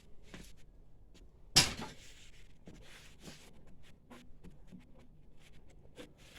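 Hands handling parts inside a printer: small scattered clicks and rattles, with one loud sharp knock about one and a half seconds in.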